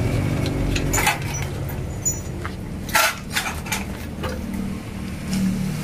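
A motorcycle engine running in the background, dropping in level about a second in. Over it come a few sharp clicks and knocks of metal being handled, the loudest about three seconds in, as the aluminium antenna boom is set in its clamp holder.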